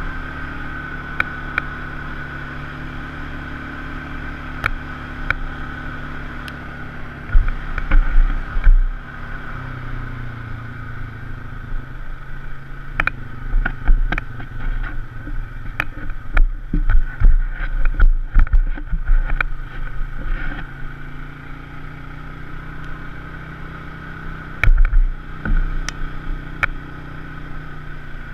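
Polaris RZR side-by-side engine running steadily while riding a rough trail, with scattered sharp clicks and loud low thuds that come in clusters: once about a third of the way in, through the middle, and again near the end.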